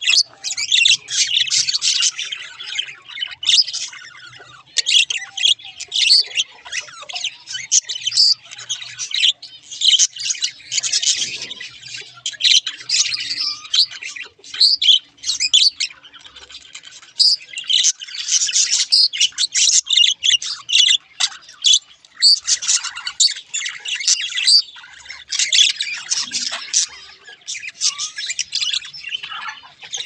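Budgerigars chattering and warbling: a dense, rapid stream of high chirps and squawks in phrases of a few seconds, with brief pauses between them.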